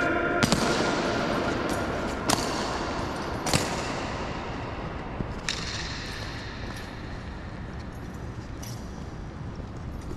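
Sharp knocks from the honour guard's ceremonial drill during the changing of the guard, a few of them a second or two apart and later ones fainter, each ringing on in the echo of a large stone-floored hall.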